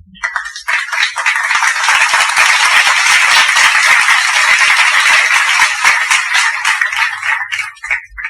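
Dense rattling noise, many quick clicks run together into a steady rattle, that starts just after the beginning and stops abruptly about eight seconds in.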